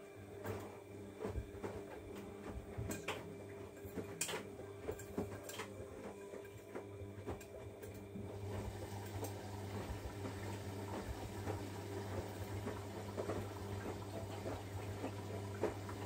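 Siemens front-loading washing machine running mid-wash: a steady motor hum with water sloshing and laundry tumbling in the drum, and scattered sharp clicks and knocks. It gets a little louder in the second half.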